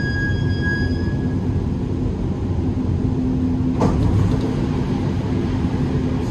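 Dubai Metro train heard from inside the carriage: a steady low rumble and hum, with a thin high squeal in the first second and a single sharp knock about four seconds in.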